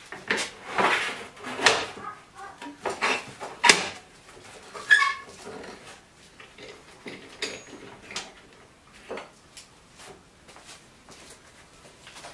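Hard parts being handled: irregular clicks, knocks and clatter, busiest and loudest in the first five seconds, with one short ringing metallic clink about five seconds in, then only sparse light ticks.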